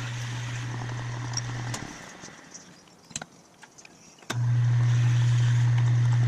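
Metal lathe running with a steady low hum while a twist drill in the tailstock bores into the workpiece in the chuck. It stops a little under two seconds in, with a few sharp clicks, then starts up again louder about four seconds in.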